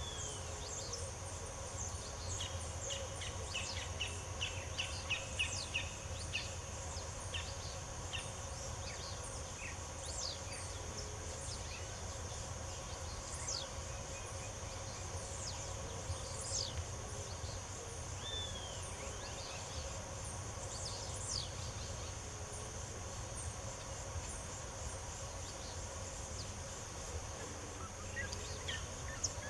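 Small birds chirping and calling, many short high notes and quick falling whistles scattered throughout, over a steady high drone and a low steady hum.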